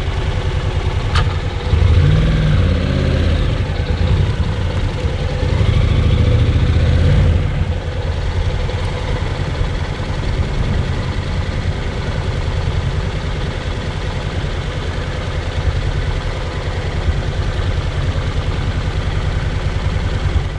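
Honda NC750X parallel-twin motorcycle engine running. It picks up revs twice in the first seven seconds, then runs steadily.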